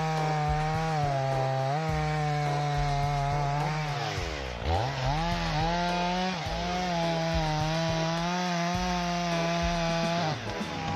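Gasoline chainsaw running at high revs, cutting wood; its engine note dips sharply about four and a half seconds in and climbs back up.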